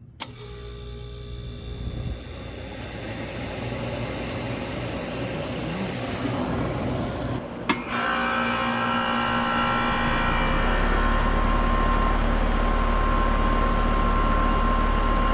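Outdoor central air-conditioner condensing units running. The first builds up gradually over several seconds; after a break about seven and a half seconds in, another unit runs with a steady hum and several held tones.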